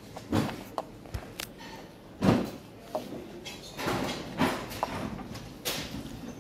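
Irregular knocks, bumps and clatters from handling and moving about among shop shelving, the loudest a dull thump about two seconds in.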